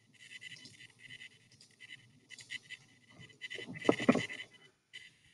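Faint clicking and rustling from typing an equation at a computer, with a brief throat noise about four seconds in.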